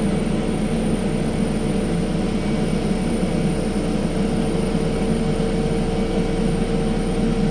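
A vehicle engine running steadily: a constant hum with an even, unchanging drone.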